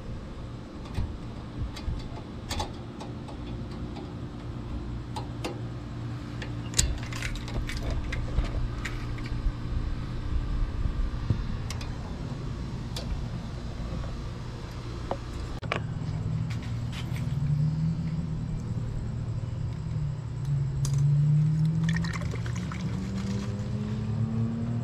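Scattered metallic clicks and clinks of hand tools working on a truck's brake line over a steady low hum. Over the last several seconds brake fluid is poured into the master cylinder reservoir, with a tone that slowly rises in pitch and grows louder.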